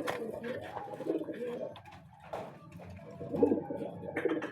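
Domestic racing pigeons cooing.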